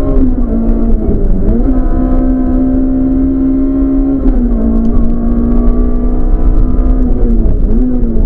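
Rally car engine heard from inside the cabin, running hard at high revs under load over steady road rumble. The pitch dips briefly about a second in, again about four seconds in, and near the end, as the throttle is lifted or a gear changes.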